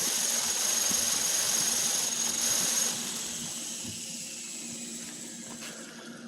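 Electric 1:4 scale coaxial RC helicopter's motor and belt-driven rotors running with a steady high whine, then spooling down from about three seconds in as the whine falls in pitch and fades. The rotors are overworking under a battery that is too heavy for the helicopter.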